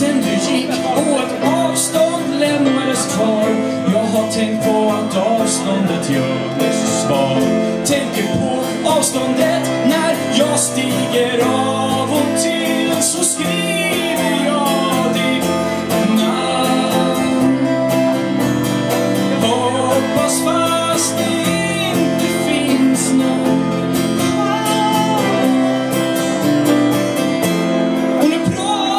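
A live band playing a song: a voice singing over guitars and a keyboard.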